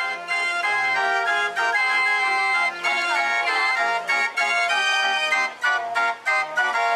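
Organ music: a tune of held notes over a regular bass line.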